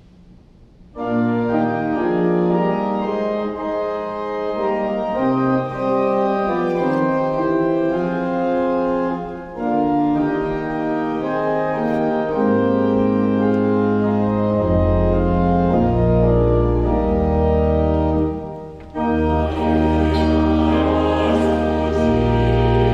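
Church organ playing the introduction to a hymn, beginning about a second in with sustained held chords; deep pedal bass notes join about halfway through, and after a short break near the end the organ starts up again.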